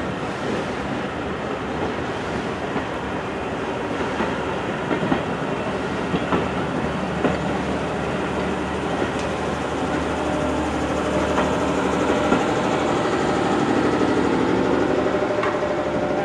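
Pullman coaches of a heritage train rolling past along a station platform, their wheels clicking over the rail joints with a continuous rumble. The sound grows a little louder in the second half.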